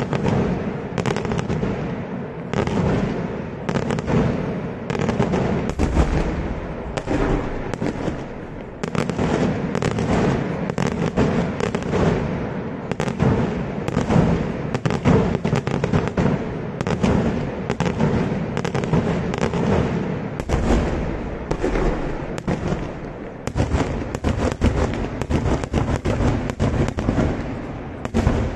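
Daytime fireworks: aerial shells bursting into clusters of small report charges. The result is a dense, continuous barrage of sharp bangs and crackling reports, several a second, with heavier booms mixed in.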